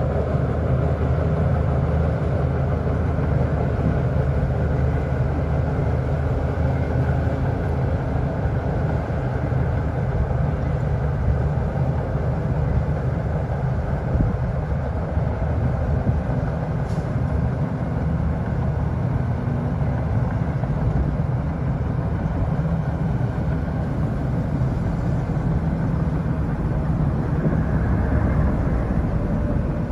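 Heavy diesel engine of earthmoving machinery running steadily at an unchanging speed, a constant low engine drone.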